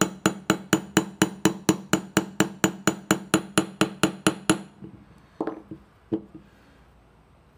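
Small brass hammer tapping a punch quickly and evenly, about four light taps a second, driving a roll pin home into a Sig M11A1 pistol slide; the tapping stops a little over four seconds in, followed by two single knocks.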